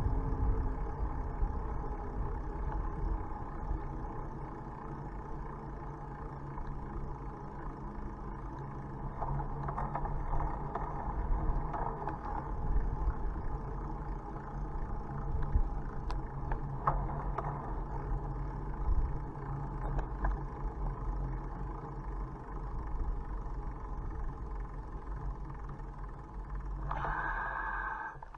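Steady rumble of a bicycle rolling along a road, with a constant low hum and a few faint clicks.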